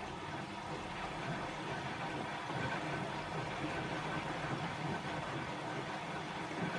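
Bosch WAE24162GB03 front-loading washing machine running through its rinse-and-spin cycle: steady mechanical hum of the motor and drum with a faint whine, getting a little louder about two and a half seconds in.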